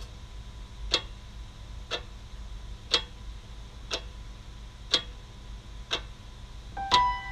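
Clock ticking steadily, one sharp tick about every second, over a low steady hum. Near the end a few piano notes come in.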